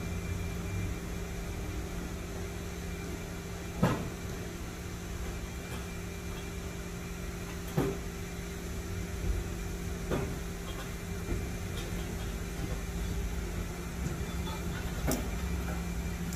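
A steady low mechanical hum runs throughout. Over it come four short, sharp metal knocks a few seconds apart, the loudest two near the start, as a metal gauge rod is lowered into an underground fuel tank and bumps against the tank opening.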